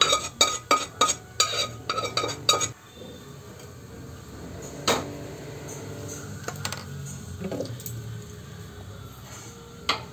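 A metal utensil knocking against a steel cooking pot and its lid: a rapid run of ringing clinks, about three a second, that stops about three seconds in. Later a single sharp click sounds, with a low steady hum and a few faint knocks behind it.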